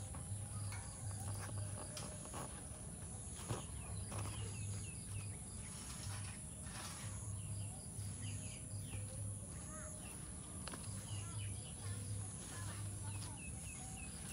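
Outdoor ambience: a steady high insect drone with scattered small bird chirps, over a low, irregular pulsing hum.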